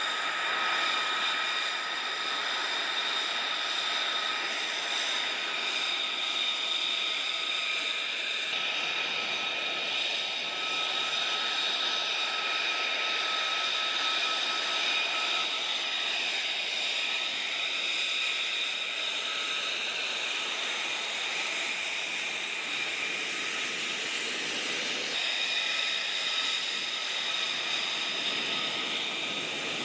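Jet engine running with a steady rushing noise and a high whine held on several fixed pitches, shifting slightly about a third of the way in and again near the end.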